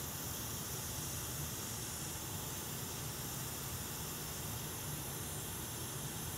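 Steady hiss of air with a low hum underneath, from repair-bench equipment running during a soldering job; no distinct clicks or events.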